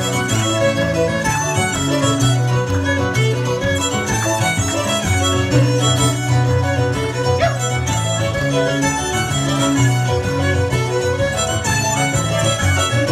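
Cape Breton fiddle tune played live on fiddle with keyboard accompaniment, the keyboard holding a steady low bass under the fiddle melody.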